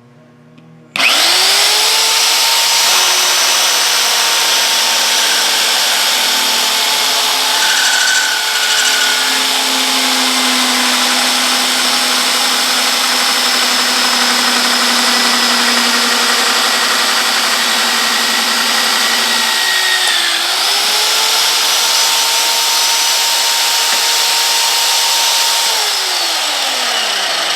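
Vevor magnetic drill press motor spinning up and cutting a hole through metal plate with an annular cutter, a loud steady whine under load. About twenty seconds in the pitch dips briefly as the drill bogs down, then recovers, and near the end the motor is switched off and winds down.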